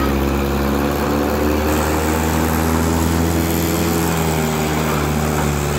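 Mahindra 575 DI tractor's diesel engine running hard at steady high revs, labouring under the pull of an overloaded trolley as it tries to climb a concrete ledge. The engine note sags slightly about four seconds in.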